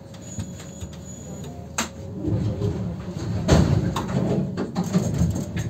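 Konstal 105Na tram standing with a steady hum, a sharp click a little under two seconds in, then the tram moving off: a low rumble with knocks and clatter from the wheels on the rails, building up and growing louder.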